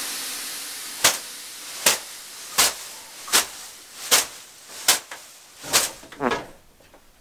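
A leafy birch sauna whisk (vihta) slapping against skin in steady strokes, about one every 0.8 seconds, seven in all, over the fading hiss of steam rising off the sauna stove after water was thrown on the stones. Near the end a short falling vocal sound, like a sigh.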